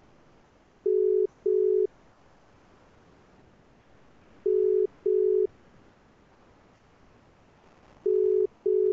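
Telephone ringing tone: a steady low beep sounding in pairs, three double beeps about three and a half seconds apart.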